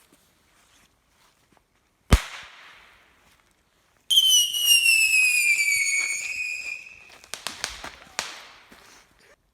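A firecracker goes off with a single sharp bang about two seconds in. Then a whistling firework screeches loudly for about three seconds, its pitch sinking slowly, and is followed by a quick run of sharp cracks.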